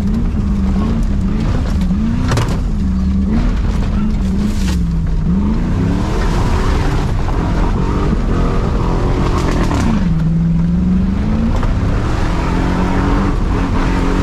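Truck engine being driven hard, its revs rising and falling over and over, dropping low about five seconds in and again about ten seconds in before climbing back. A couple of sharp knocks in the first five seconds.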